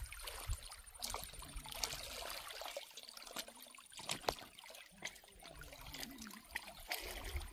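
Faint water lapping and trickling, with scattered small clicks.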